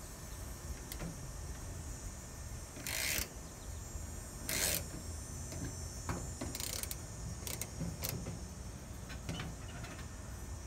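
Brass service valves on a ductless mini-split's outdoor unit being worked open by hand, with two short hisses about three and four and a half seconds in, then scattered metal clicks. The valves are being opened to release the R-410A refrigerant into the line set.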